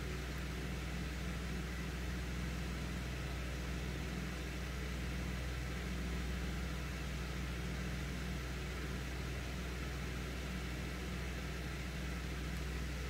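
Steady low mechanical hum with an even hiss, unchanging throughout. It sounds like room background from a running fan or appliance. No distinct snips of the nippers stand out.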